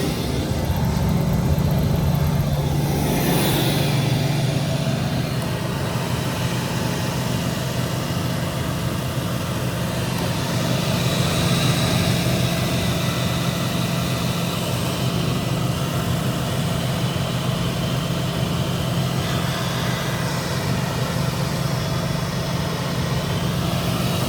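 Hess Combi 115 shoe repair combination machine running steadily: a constant motor hum with the whir of its spinning shafts.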